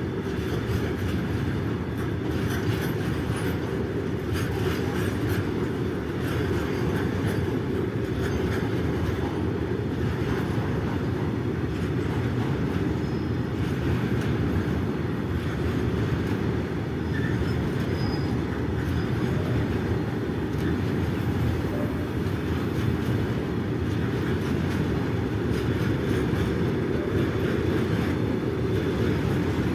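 Freight train of BTPN tank wagons, hauled by a WDG4 diesel locomotive, running past with a steady low rumble.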